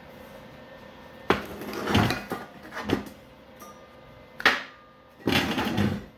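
Metal clanking and rattling as steel parts are handled: several sharp knocks with rattly clatter between them, and a longer rattle near the end.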